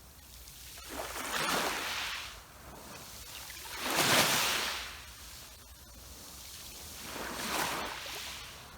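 Sea waves washing in on the shore, three surges of rushing water, the middle one the loudest.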